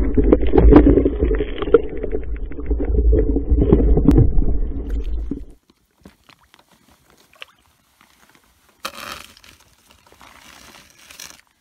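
Muffled underwater rumble full of small clicks and gurgles, as picked up by a camera under the water, cutting off abruptly about five and a half seconds in. After that only faint scattered ticks, with a short burst of noise about nine seconds in and another near the end.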